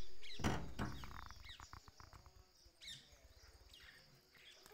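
Small birds chirping in short rising and falling notes over a steady high hiss like insects. A louder low sound at the start fades away over the first two seconds.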